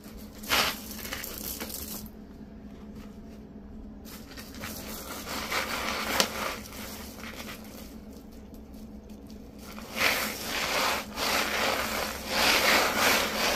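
Dried beans rattling and shifting in a plastic kiddie pool as ferrets burrow through them and a hand stirs them. The rustling comes in uneven bursts, with a few sharper clatters, and grows busier and louder in the last few seconds.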